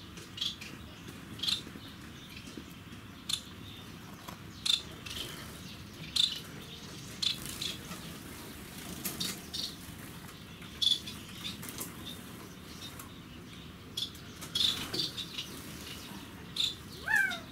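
Bengalese finches (society finches) giving short, high chirps at irregular intervals, with a brief sliding call near the end.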